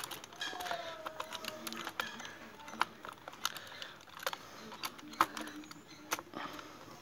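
Screwdriver tightening the screw that holds a scooter's air filter element: scattered, irregular light clicks and taps of the tool's metal on the screw and housing.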